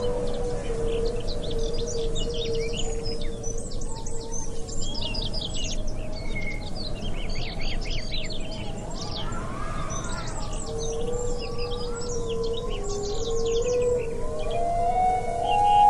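Birds chirping and trilling in many quick, short calls over slow, held background-music tones that step up in pitch near the end.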